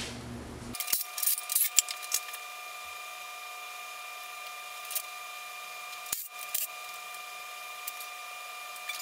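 Scattered sharp metallic clicks and clinks of pliers and small parts being handled on a Subaru EJ255 engine's top end, a cluster about a second in and another around six seconds, over a faint steady hum.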